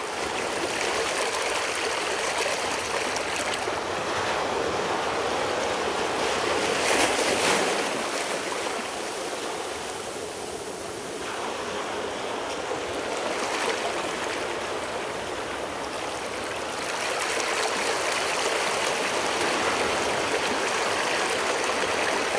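Recording of ocean waves played back, surf washing in slow swells that peak about a third of the way in and again through the last third. In this version the spatial detail has been removed, so the waves are clumped together and pushed toward one direction.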